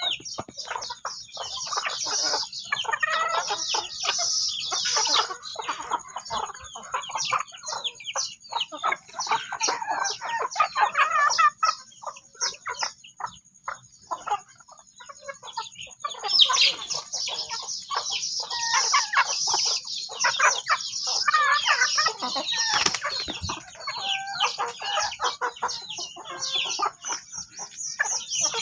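A flock of chickens feeding on scattered rice, clucking and chattering almost without pause, mixed with the high peeping of young chicks. The calls thin out briefly about halfway through, then pick up again.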